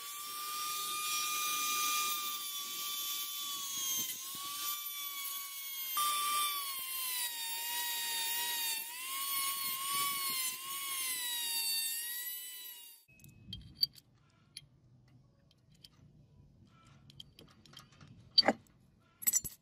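A handheld rotary tool with a thin cut-off disc grinding into a steel airgun receiver tube: a high whine whose pitch dips and wavers as the disc bites, stopping about two-thirds of the way through. A few sharp clicks follow near the end.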